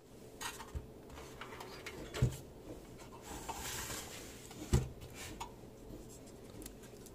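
Hands working on computer hardware: small clicks and rubbing, a short scrape, and two dull knocks about two and a half seconds apart.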